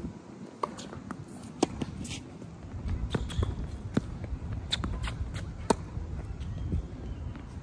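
Tennis rally: sharp pops of rackets striking a tennis ball and the ball bouncing on the court, about one or two a second at uneven spacing, some with a brief ring.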